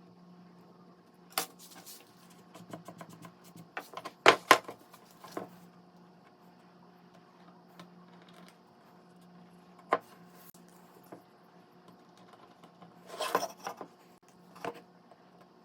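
Small wooden pieces and hand tools being handled and set down on a workbench: scattered knocks and clicks, the loudest a close pair about four seconds in and a short cluster near the end, over a faint steady hum.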